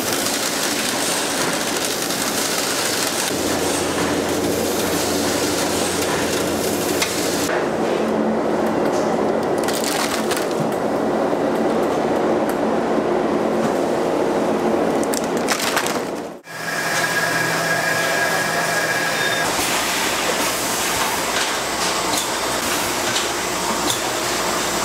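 Factory production-line machinery and conveyors running, a steady noise with rattling clatter and a low hum. About two-thirds of the way through it breaks off sharply and gives way to a different steady machine noise.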